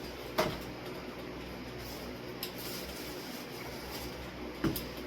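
Electric fan running with a steady whooshing hum, broken by two short knocks, one about half a second in and one near the end.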